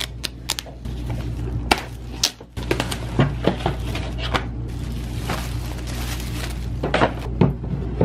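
Flat-pack furniture packaging being cut and pulled open: plastic wrap crinkling and rustling, cardboard sliding and knocking against the panels, in an irregular run of short clicks and scrapes.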